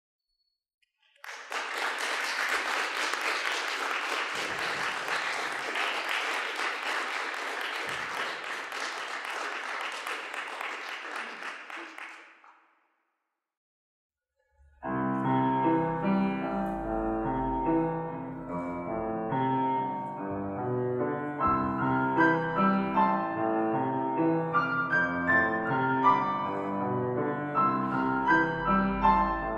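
Audience applauding for about eleven seconds, fading out. After a short silence, piano music starts about fifteen seconds in.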